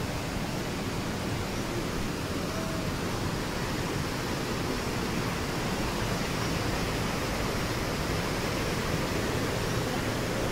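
Steady rushing of a small waterfall and a mountain stream pouring over rocks.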